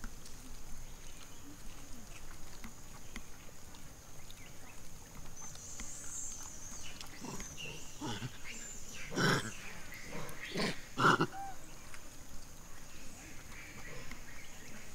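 Macaques giving a run of about five short, shrill squealing calls through the middle, the last ones loudest, over a steady high-pitched drone.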